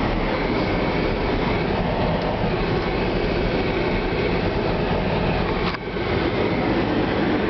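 Steady rumble of a BMW X5 driving over the course, heard from inside the cabin: tyre, road and engine noise, with a brief click and dip about six seconds in.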